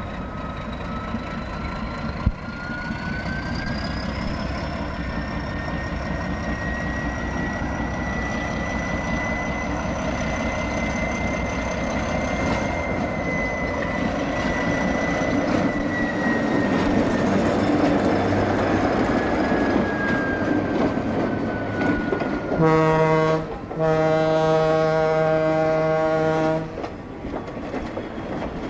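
Ann Arbor Railroad diesel locomotive number 21 running, a high whine in its sound rising in pitch, holding, then falling away. Near the end its horn sounds one short blast, then one long blast of about three seconds.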